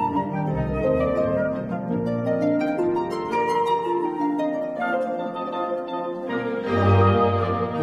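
Instrumental background music of held and changing notes, swelling louder about seven seconds in.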